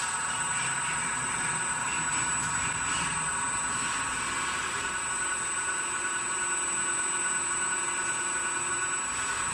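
Harmonic-drive 5th-axis rotary table and 4th axis on a CNC mill running without cutting, giving a steady mechanical whine made of several high tones, with a constant thin high-pitched tone over it. A faint lower hum joins about halfway through.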